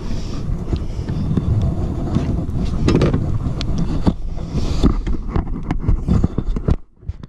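Wind buffeting a body-worn camera's microphone, heard as a steady low rumble, with scattered knocks and rustles as a largemouth bass is handled and leaned over the boat's side for release. It cuts off suddenly near the end.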